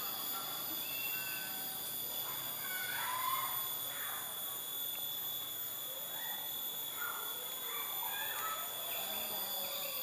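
Insects droning steadily in several high tones at once, with scattered short chirps over them.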